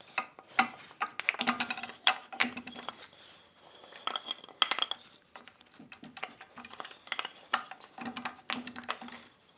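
A wrench working the recessed spring-tension nuts on a power hammer's cast-iron frame: irregular metallic clinks and taps, some briefly ringing, as the nuts are loosened.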